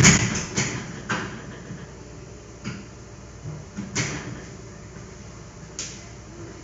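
A loud bang, then a handful of lighter knocks and clatters spread over the next six seconds, like things being shut and moved about in a room.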